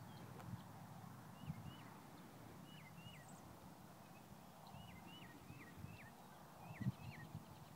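Faint open-air ambience: a small bird gives short, quickly falling chirps, often in pairs, over a low rumble, with a few soft low thumps, the strongest about seven seconds in.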